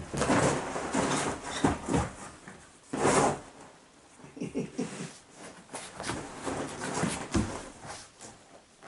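A pet scratching and pawing at a squeaky floor mat, a run of irregular scraping and rustling strokes with short squeaky bits near the middle.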